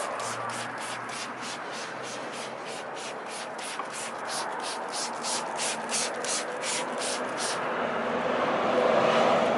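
Hand rubbing back and forth over a car's painted fender panel, in even strokes about three a second. The strokes stop about three-quarters of the way through, followed by a steadier rubbing hiss that grows louder.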